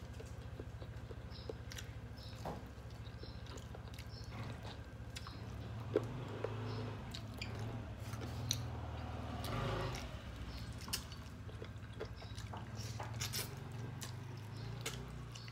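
A person chewing mouthfuls of rice and chicken curry eaten by hand, with many short clicks scattered throughout and a steady low hum underneath.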